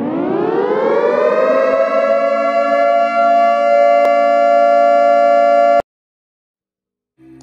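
A siren winding up, its pitch rising over the first couple of seconds and then holding a steady wail. It cuts off abruptly about six seconds in.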